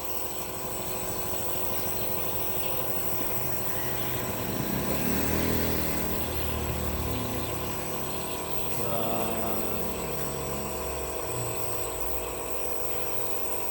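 Nebulizer compressor running with a steady hum and a constant high whine, giving a child steam treatment for a cough. A brief muffled voice rises about five seconds in.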